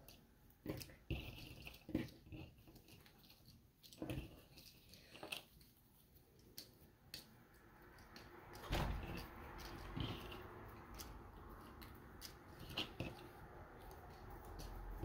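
Cardboard jigsaw puzzle pieces being pulled apart and sorted by hand on a tabletop: faint, scattered light clicks and rustles. There is a duller thump about nine seconds in, and a faint steady background noise comes up from about seven seconds.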